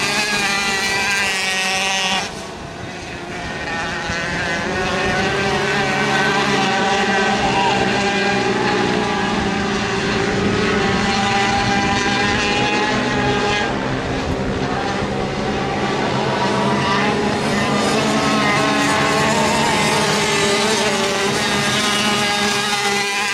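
Several small 65/85cc flat-track racing motorcycles running hard together, their overlapping engine notes rising and falling as the riders work the throttle through the turns. The sound drops briefly about two seconds in, then builds back up.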